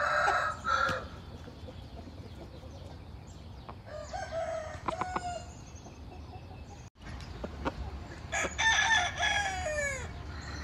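Roosters crowing: a short call at the start, another crow about four seconds in, and a longer crow with a falling end about eight and a half seconds in.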